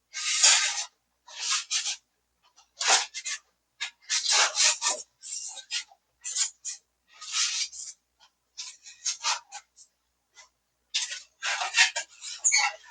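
Styrofoam insulation board squeaking and rasping in short, irregular strokes as it is rubbed and worked.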